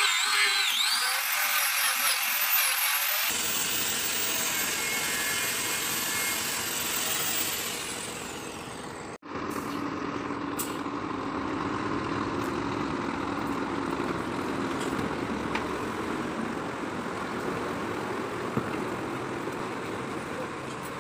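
A handheld power tool whines, its pitch rising and falling. After an abrupt cut there is a diesel truck engine idling steadily.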